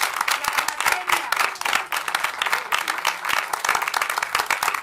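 Audience applauding: dense, continuous clapping from many hands.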